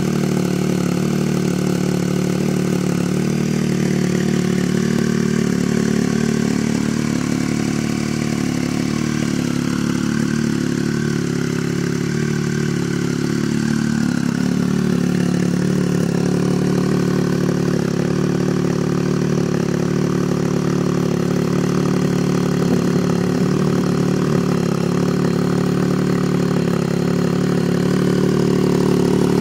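2010 Triumph Speed Triple's 1050 cc inline three-cylinder engine idling steadily through a Competition Werkes slip-on exhaust.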